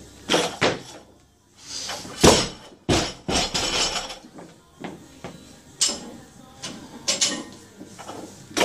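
A loaded 80 kg barbell with rubber bumper plates dropped onto a lifting platform. It lands with a loud thud about two seconds in and bounces a few times, followed by lighter knocks as the bar is handled and reset.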